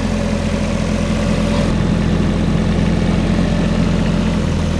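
Diesel engine of a compact construction machine running steadily at idle, a low, even hum.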